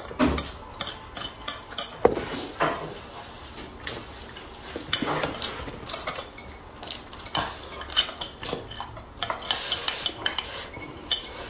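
Chopsticks clicking and scraping against a ceramic rice bowl: many sharp clicks, often in quick runs, with softer scraping between them.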